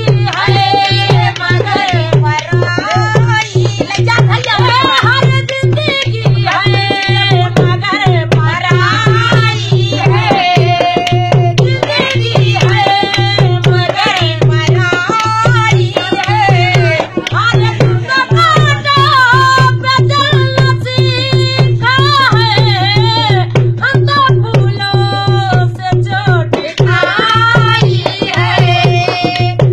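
A woman singing a rustic village folk song to her own dholak, the rope-tensioned barrel drum played by hand in a quick, steady rhythm under the melody.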